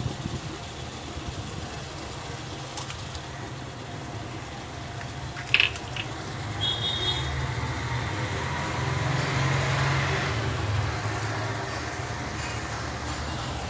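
Eggs being broken into a kadai of mutton masala sizzling over a steady low hum. A single sharp crack of eggshell comes about halfway through, and the sizzle swells a little later.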